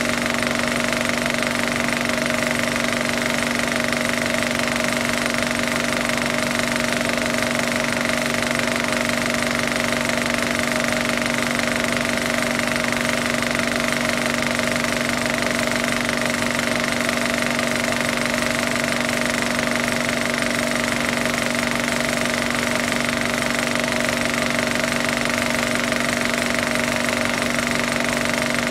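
Steady, unchanging mechanical running noise with a constant hum in several pitches.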